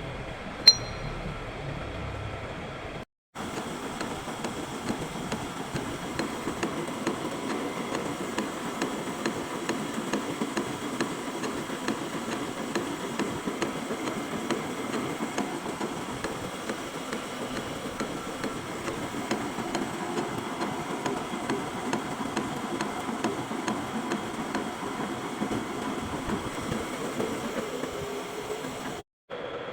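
Metal lathe running, a steady mechanical noise with a rapid crackle of small ticks, and one sharp click less than a second in.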